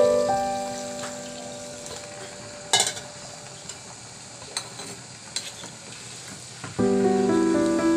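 Rice and meat bubbling in boiling stock in a pan while a spoon stirs, with a few clicks of the spoon against the pan, the loudest about three seconds in. Piano background music fades out at the start and comes back near the end.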